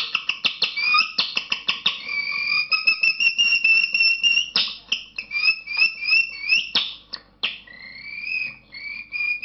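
A man imitating a canary's song by whistling through a piece of plastic bag held to his lips: a fast clicking trill, then long high piping whistles broken by short rising chirps.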